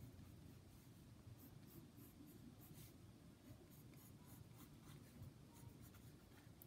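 Faint scratching of a pencil on sketchbook paper as lines are drawn, in short, irregular strokes.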